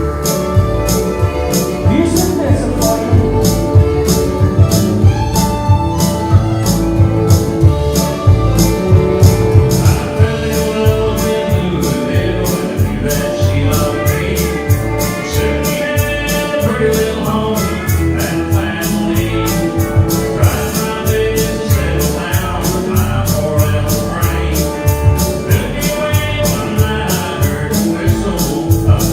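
Live country band playing an up-tempo song, with a quick, steady ticking beat on top and sustained instrument notes underneath.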